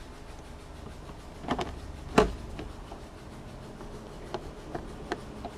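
Sharp clicks and knocks of a refrigerator door handle being tightened onto the door, with the loudest knock about two seconds in and lighter ticks later, over a low steady hum.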